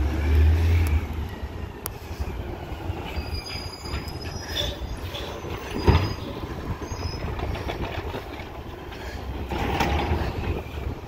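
Autocar ACX garbage truck with an Amrep automated side-loader, running on natural gas, rumbling low as it creeps up to the next bins. Thin high squeals come and go through the middle, with a single sharp knock about six seconds in.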